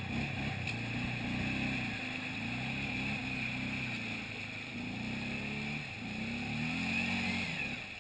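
Arctic Cat ATV engine revving in surges as the quad churns through a deep mud hole, the pitch rising and falling with the throttle.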